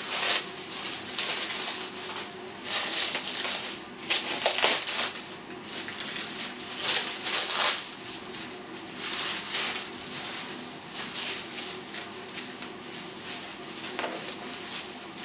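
Plastic stretch film crinkling and rustling in irregular bursts as it is peeled and pulled off a boiled pork loin by hand.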